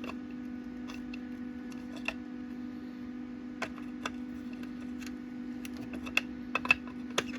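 Scattered light metal clicks and taps of hand tools working a nut welded onto a broken bolt, more frequent and sharper near the end, over a steady low hum.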